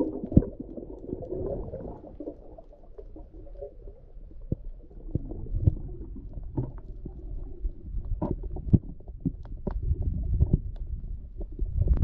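Muffled underwater sound picked up through a camera housing: a low rumble of moving water with scattered sharp clicks throughout.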